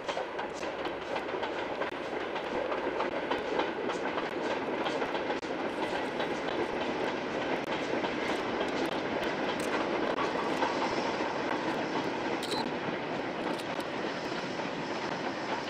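Steam locomotive hauling a short goods train of wagons and a brake van across a stone viaduct: a steady running noise from the train with many small clicks and clanks. A brief high chirp about three-quarters of the way through.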